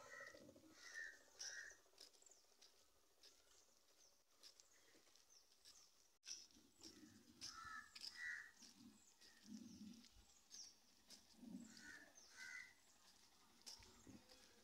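Faint crows cawing, two caws at a time, about three times.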